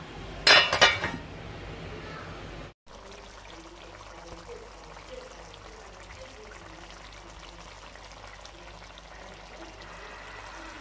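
Stuffed bitter gourds in tomato gravy simmering on a low flame: a steady soft bubbling hiss with small pops. Near the start there is a brief loud clatter, and the sound cuts out for a moment a little before three seconds in.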